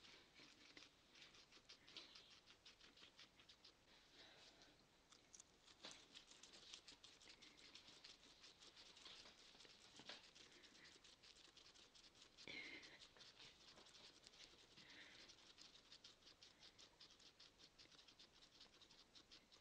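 Two guinea pigs chewing greens: a faint, rapid crunching of many small clicks, several a second.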